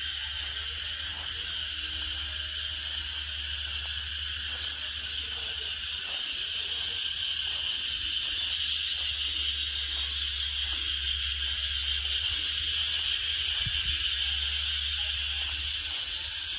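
Cicadas droning in the trees: a steady, shrill, high-pitched chorus that swells slightly in the middle.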